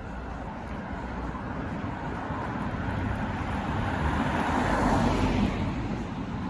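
A car driving past, its tyre and engine noise swelling to a peak about five seconds in, then fading.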